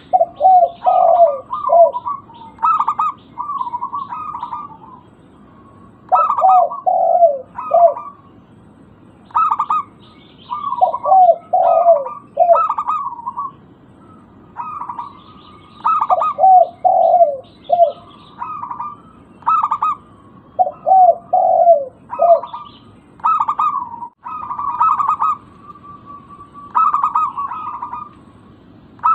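Zebra dove (perkutut) singing its cooing song over and over: each phrase is a burst of quick higher notes followed by a few lower falling coos, with a new phrase every three to four seconds.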